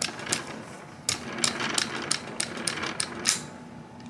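Cleaning rod pushing a patch back and forth through the barrel of a Smith & Wesson Model 10 revolver to dry the bore after brushing: an irregular run of sharp clicks and scrapes.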